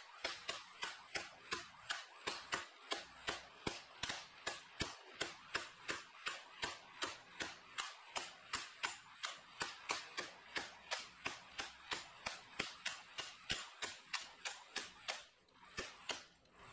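12-volt egg-beater style impact wrench hammering a tight bolt loose, played at double speed: a steady run of sharp whacks, about three to four a second, as the spun-up hammer repeatedly strikes the output shaft. The blows stop briefly near the end.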